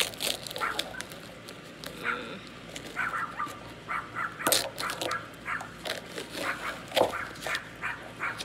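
A dog barking over and over in short, repeated barks, with a few sharp clicks in between. By its owner's reading it is upset and wants to be let back into the house.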